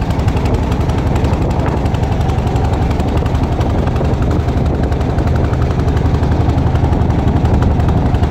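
Motorboat engine running steadily with a rapid, even putter.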